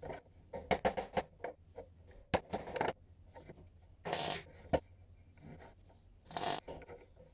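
Light metallic taps and knocks on a steel panel, then two short crackling bursts of a MIG welder tack welding the steel, about four seconds in and again about six and a half seconds in.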